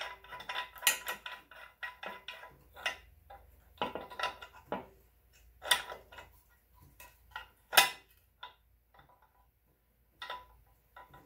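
Small steel parts clinking and tapping on the transfer case housing as a bearing puller is set up with U-joint bearing caps slid under it as spacers. Irregular metallic clinks, the loudest about eight seconds in.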